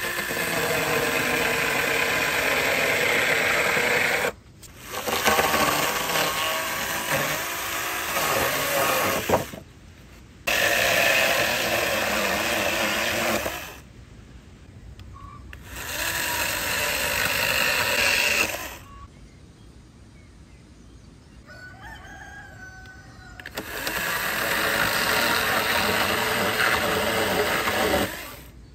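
A power tool running in five bursts of a few seconds each, starting and stopping abruptly.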